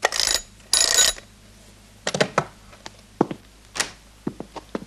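An old wall-mounted telephone being hung up, with two short rattling noises in the first second. Then a run of scattered knocks and clicks, and a door opening by its handle near the end.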